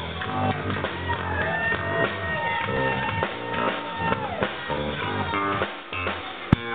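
Live rock band playing, with electric guitars and drums; long lead notes bend up and down in pitch. A single sharp click sounds just before the end.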